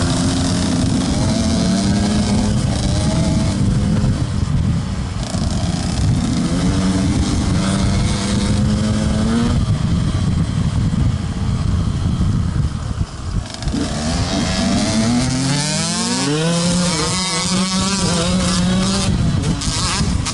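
Enduro dirt bike engine running under load on a trail, heard from on board, its revs rising and falling as the rider works the throttle and gears. About two-thirds through the throttle is briefly shut off, then the engine revs up again in a series of rising pulls.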